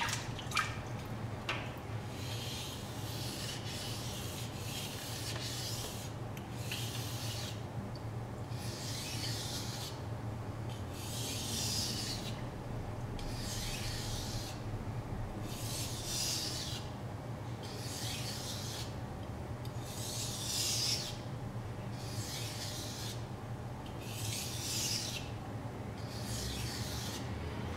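A Yu Kurosaki Shizuku knife's R2 steel blade is being stroked back and forth across a wet Japanese water stone during sharpening, making a rhythmic scraping hiss about every one and a half to two seconds. A few sharp clicks come right at the start.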